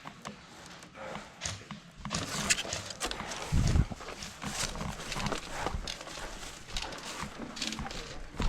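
Footsteps and rattling gear of a player on the move, with a heavy low thump about three and a half seconds in.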